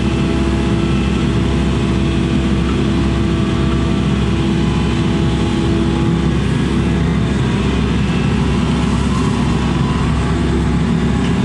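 Hydraulic excavator's diesel engine and hydraulics running steadily under digging load, heard from inside the operator's cab. The bucket digs and then swings away loaded, and a steady whine drops out about halfway through.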